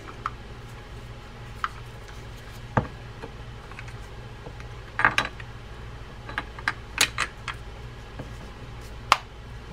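Small metal-and-plastic clicks and taps from a Penn SpinFisher 6500SS spinning reel as its gearbox side case is fitted over the body and pressed into place, with a sharper click about nine seconds in, heard as a nice solid click of the case seating. A steady low hum runs underneath.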